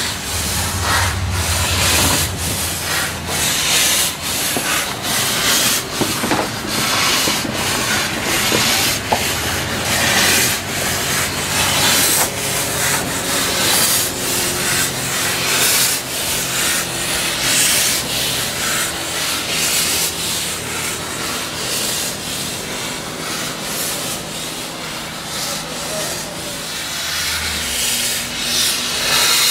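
Narrow-gauge steam locomotive 898.01 moving at low speed, its exhaust chuffing in a steady rhythm with hissing steam from the open cylinder drain cocks.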